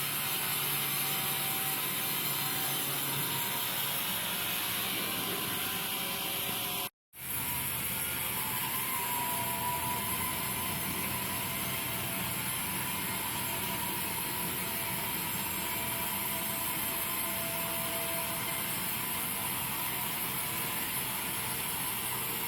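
Sawmill machinery running with a steady hissing mechanical noise, broken by a brief moment of silence about seven seconds in; after the break a faint steady whine sits under the noise.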